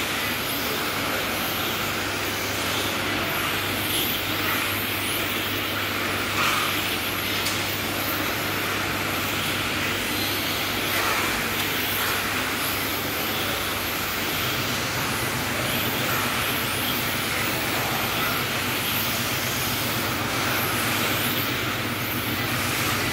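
Electric 1/10-scale RC touring cars racing, their motors and gears giving a high-pitched whine that rises and falls again and again as the cars accelerate, brake and pass, over a steady low hum.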